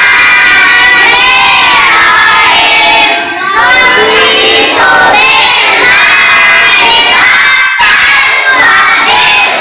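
A large group of children reciting Quran readings aloud in unison, loud and chant-like, with brief breaks for breath about three seconds in and again near eight seconds.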